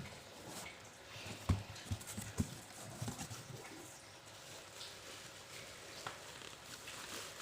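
A handful of soft knocks and taps from objects being handled, bunched between about one and a half and three seconds in, over a low background hiss.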